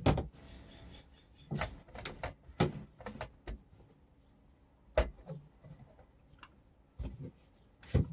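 Irregular knocks and clunks of kitchen items being handled and fitted into a drawer, with a louder knock at the start and another about five seconds in.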